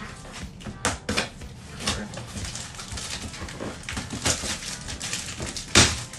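Cardboard shipping box being torn open and unpacked by hand: a run of rips, scrapes and handling knocks on cardboard, the loudest a sharp knock near the end.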